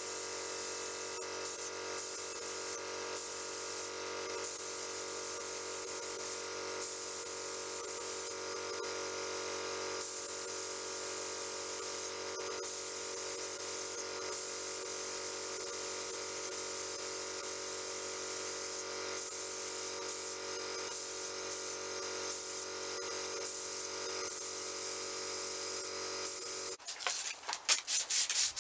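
Paint spray gun hissing steadily over an even machine hum while spraying. About a second before the end it cuts off and gives way to sandpaper rubbing in quick, irregular strokes on a painted bench grinder guard.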